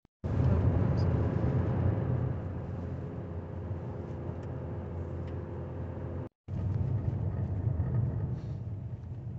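Car driving along a snow-covered road, heard from inside the cabin: a steady low rumble of engine and tyre noise with a faint hum. The sound cuts out briefly a little over six seconds in, then resumes the same.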